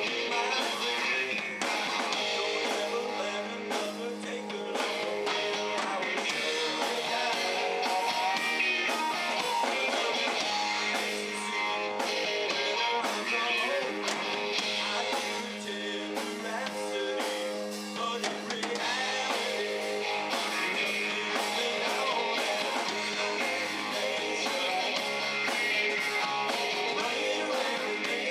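Live rock band playing a classic rock song: electric guitar over a steady drum-kit beat, amplified in a small room.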